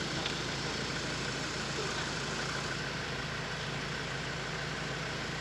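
An engine idling steadily: a constant low hum with no change in pitch.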